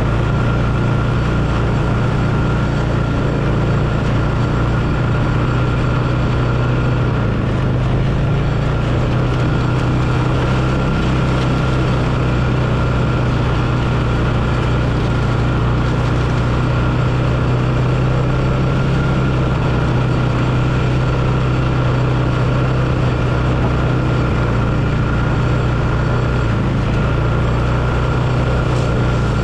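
Four-wheeler (ATV) engine running steadily as it rides along a woodland trail, a low drone whose pitch shifts only slightly.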